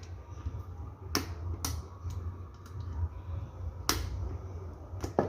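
Four sharp metal clicks as valve-train parts on a Mitsubishi 6G72 cylinder head are pressed down and snap into place, over a steady low hum.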